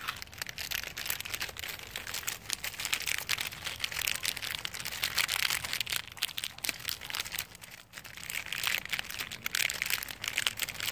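Foil packets of 'fire bomb' popper toys crinkling as they are squeezed in the hands to activate them: a dense, crackly rustle that thins briefly about two-thirds of the way through.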